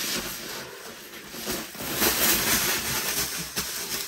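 Bubble wrap and clear plastic film crinkling and rustling as they are pulled off a rolled diamond painting canvas, loudest about two seconds in.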